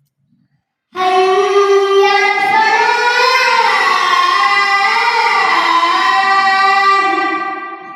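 A child chanting the azan, the Islamic call to prayer, in one long held phrase whose pitch winds up and down. It starts about a second in and fades out near the end.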